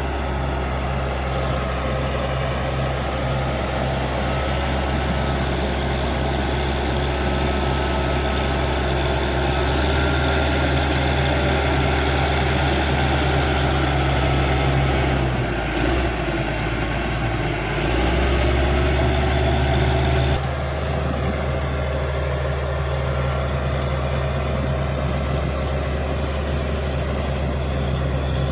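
Caterpillar D6G bulldozer's diesel engine running steadily at working revs. A little past halfway the pitch sags and then climbs back, as the engine lugs under load and recovers. A few seconds later the sound changes abruptly.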